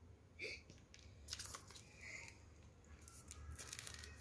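Near silence, with a few faint rustles and clicks of toy packaging being handled off to the side.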